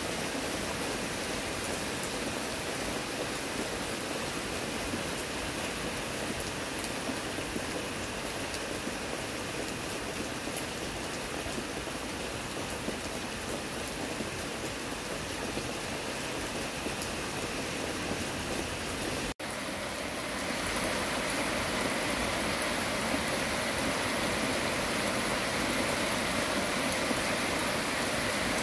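Steady rain falling, an even hiss of rain throughout, with a brief break about two-thirds of the way through, after which it is slightly louder.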